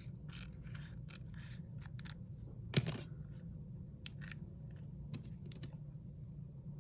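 Pry tool scraping and clicking in the seam between an iPhone 8 Plus screen and its frame as the screen is levered loose, with one sharper click near the middle.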